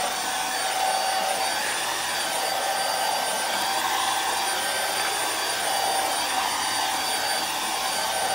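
Stick vacuum cleaner running steadily, its motor giving a high, even whine over the rush of air.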